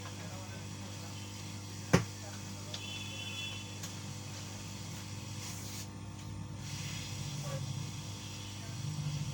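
Steady hum and hiss of a hot-air rework station blowing on a laptop motherboard to desolder a part, with one sharp click about two seconds in.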